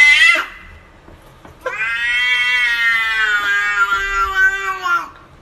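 Domestic cat meowing: the end of a rising call in the first half second, then, after a short pause, one long drawn-out meow of about three seconds that drops in pitch as it ends.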